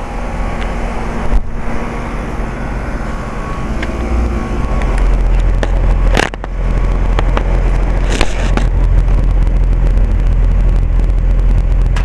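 2003 Rheem Classic heat pump outdoor unit running in heat mode: a steady low hum from the compressor and condenser fan, with a heavy rumble of fan air rushing over the microphone held above the top grille. It dips briefly about halfway through, then carries on.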